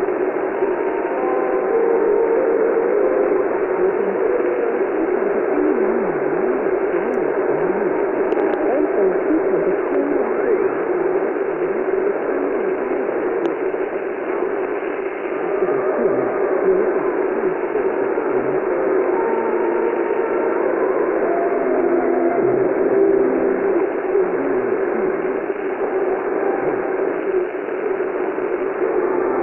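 Shortwave radio receiver output on 12500 kHz: a steady, loud hiss of static and interference with short wavering tones, no intelligible speech coming through.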